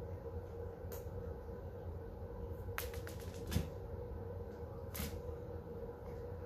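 Dry cat kibble ticking and skittering on a hard floor as a cat bats and pounces on it: a few sharp clicks, a quick run of them about three seconds in, and the loudest tap with a dull thump just after. A steady low hum lies underneath.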